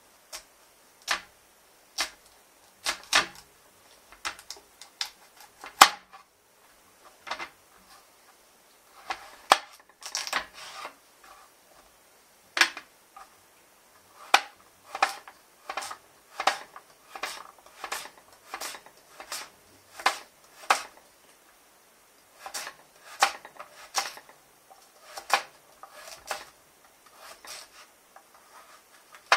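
Kitchen knife chopping a carrot on a plastic cutting board: sharp, irregular knocks of the blade striking the board, about one a second at first and coming faster, up to two or three a second, in the middle.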